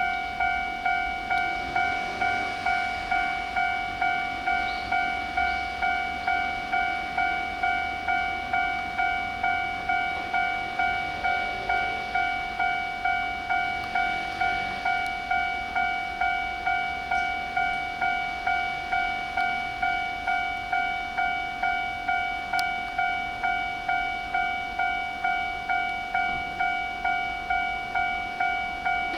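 Japanese railway level-crossing alarm starts suddenly and rings with its even ding-ding strokes, just under two a second, warning that a train is approaching.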